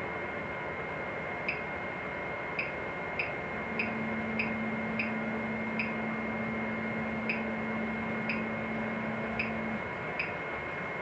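Wanhao 3D printer's extruder being jogged one millimetre per knob click: a run of short, evenly paced clicks, about one and a half a second, as filament is fed through. A low steady hum runs from about 4 s to 10 s while the extruder motor turns, over the printer's constant high whine.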